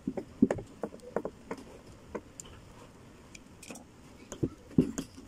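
Screwdriver turning a screw into a laminated wood table board: a string of small irregular clicks and creaks. They thin out after about two seconds, with a couple of louder knocks near the end.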